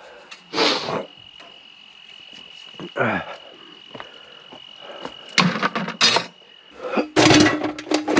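Pieces of scrap metal being handled and set down: a clank, a scraping clatter about three seconds in, then louder metallic clatters about five and a half and seven seconds in. A steady high-pitched tone runs underneath and stops about seven seconds in.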